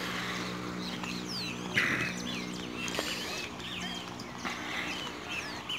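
Many birds chirping in a dawn chorus over a steady low motor hum. A brief noisy rustle about two seconds in is the loudest moment.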